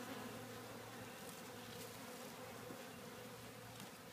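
Faint, steady buzzing of a busy honey bee colony at the hive entrance, workers clustering and flying in and out.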